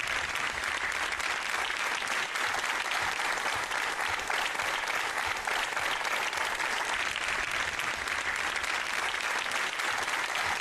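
Studio audience applauding, a steady, continuous clapping.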